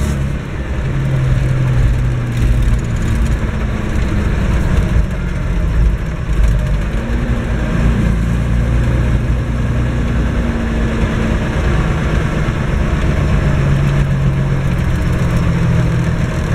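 Massey Ferguson 1102 (Eicher 3105) tractor engine running steadily under way, heard from inside the cab; the engine note shifts in pitch for a few seconds around the middle.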